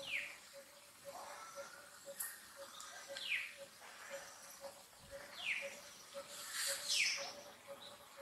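Four short high-pitched animal calls, each sliding down in pitch, the last one about seven seconds in the loudest, over a faint steady pulse about twice a second.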